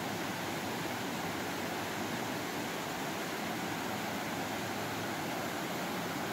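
Waterfall pouring over a rock ledge into a pool: a steady, even rush of falling water.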